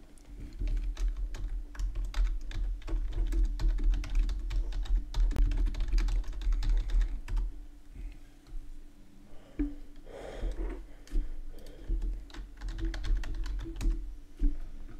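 Typing on a computer keyboard: a fast run of key clicks for several seconds, then slower, scattered keystrokes and clicks.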